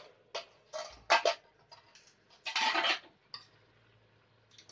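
Aluminium cooking pot and its plate lid clinking and clattering as the lid is handled, with a run of sharp metal clinks, the loudest about a second in, and a longer clatter of about half a second near the middle.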